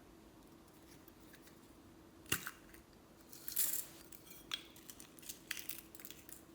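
Small hand-handling sounds at close range: a sharp click, then a short scrape and a run of lighter clicks and snips. A faint steady hum sits underneath.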